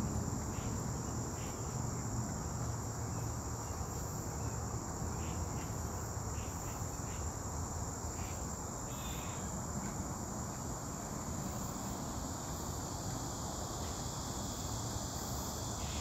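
Summer insect chorus: a steady, high-pitched trill with short chirps here and there, over a low rumble.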